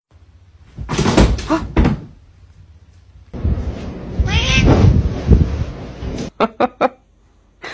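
A cat meowing amid rustling, as a heap of clothes lands on it, then a few quick sharp knocks near the end.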